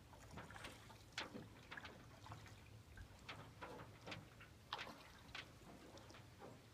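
Faint water drips and small trickles from a paddle moving through calm river water, heard as scattered, irregular drops.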